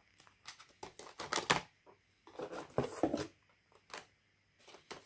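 Small diecast model cars and their hard packaging being handled, making rapid clicks and rattles. There are two bursts of about a second each, the first beginning near one second in, followed by two single clicks later on.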